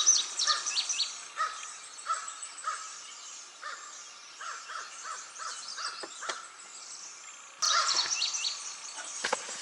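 Crows cawing in a run of short, harsh calls, loud at first and fading, then a sudden louder burst of calls about three-quarters of the way through. A couple of sharp knocks sound near the end.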